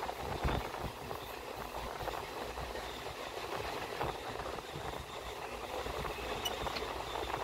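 Indian Railways express passenger train running, heard from on board: a steady rumble of wheels on rail, with a few sharp clacks as the wheels pass over rail joints.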